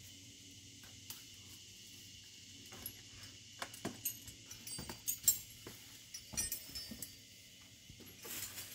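A faint, steady chorus of insects, with scattered light clicks, snaps and leaf rustles, thickest in the middle, from someone climbing through the tree's branches.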